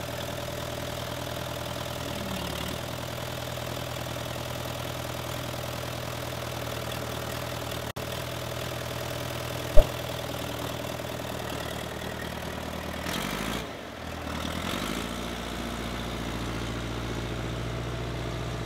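Case 580B loader backhoe's engine idling steadily, with one sharp knock about ten seconds in, the loudest sound. A few seconds later the engine note dips and changes as the machine pulls away.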